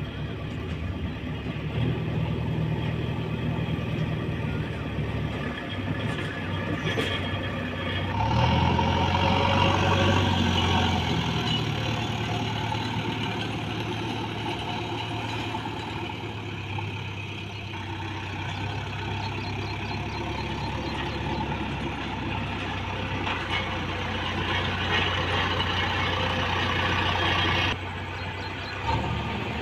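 JCB 3DX backhoe loader's diesel engine running under varying load. The engine note rises and grows louder about eight seconds in, eases back a few seconds later, and changes abruptly near the end.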